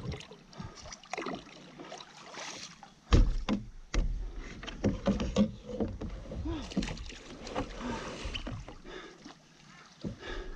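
Sit-on-top fishing kayak drifting after a hard paddle: water lapping at the hull and scattered knocks and clicks from the paddle and gear against the kayak, with a loud low thump about three seconds in.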